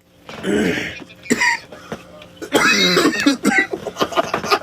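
A person coughing hard and clearing the throat: a first cough about half a second in, a short one just after a second, then a longer, louder run of coughs from about two and a half seconds in.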